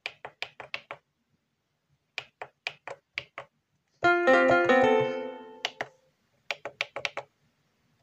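Yamaha PSS-F30 portable keyboard playing quick groups of five or six short, staccato notes, with a held chord of several notes about four seconds in that fades away over about a second and a half.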